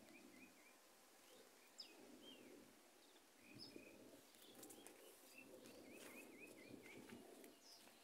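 Faint bird chirps: short, quick notes in little runs of three or four, coming several times over a quiet outdoor background.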